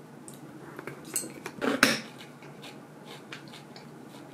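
Tableware knocking and clinking at a meal: scattered light clicks, a sharp knock about a second in and a louder one just before two seconds, as a glass beer mug is set down on the wooden table.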